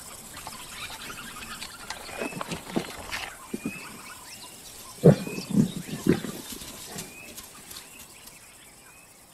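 Lions growling and snarling in short, rough bursts at a kill, in two clusters, the loudest burst about five seconds in.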